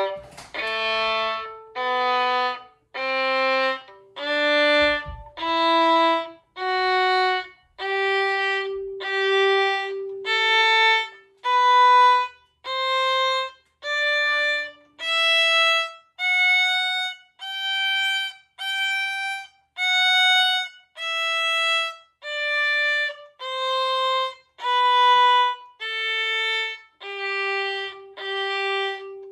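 Violin playing a G major scale exercise: separate notes about one a second, each stopped short with a brief silence between, slurred with a stopped bow. The scale climbs to its highest notes around the middle and comes back down.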